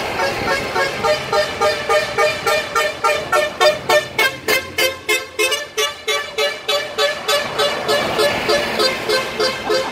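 Truck air horns blowing in rapid repeated blasts, about three a second, from trucks passing close by.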